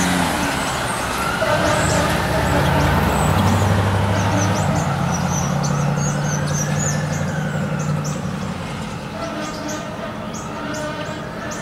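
Fire truck's wail siren sweeping slowly up and down, about one cycle every four to five seconds, over the low hum of the truck's diesel engine, fading as the apparatus pulls away.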